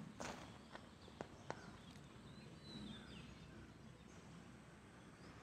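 Faint outdoor ambience with scattered short, high bird chirps and a few sharp clicks in the first second and a half.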